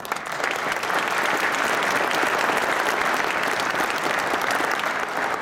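An audience applauding: many hands clapping at once, starting suddenly and holding steady.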